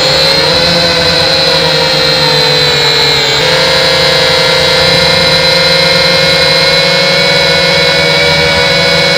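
Syma quadcopter's small brushed motors and propellers whining steadily in flight, heard from the camera mounted on the drone itself. The pitch steps slightly about three and a half seconds in as the throttle changes.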